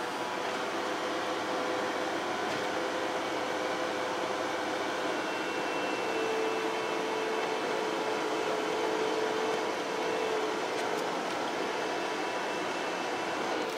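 Steady running drone of a Bobcat skid-steer loader, heard from inside its cab, with a whine that grows stronger and slightly higher in pitch midway through.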